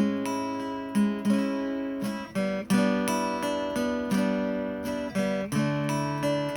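Background music: acoustic guitar strummed in a steady run of chords, a fresh chord about every half second to second.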